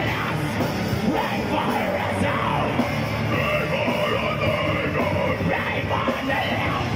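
Live rock band playing electric guitars and a drum kit, with a singer shouting the vocals.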